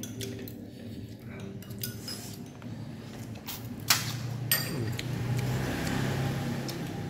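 Eating sounds of a person biting and sucking meat off a boiled pork bone, with two sharp clicks about four and four and a half seconds in and a noisier stretch of slurping near the end, over a steady low hum.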